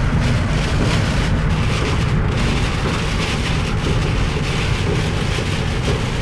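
Heavy rain and gusting wind on a car driving at highway speed, heard from inside the cabin as a loud, steady rushing noise over a deep rumble.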